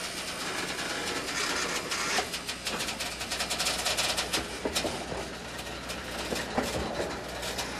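Freight cars rolling past on steel rails: a steady rumble of wheels on track with many short clicks and knocks running through it.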